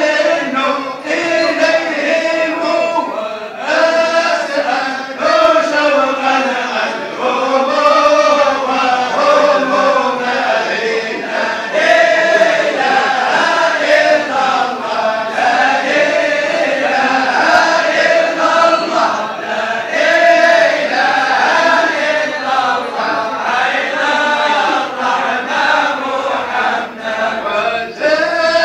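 A group of men chanting dhikr together in unison: a continuous melodic chant in long phrases that rise and fall.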